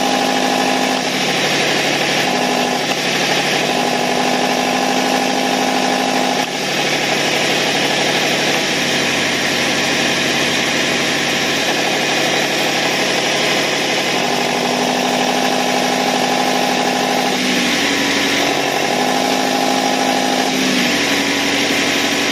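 Buick Regal engine running at a steady speed with a whine that comes and goes every few seconds. The mechanic puts the noise down to low oil pressure.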